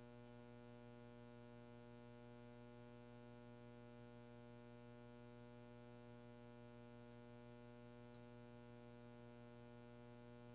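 Faint, steady electrical mains hum with many evenly spaced overtones; otherwise near silence.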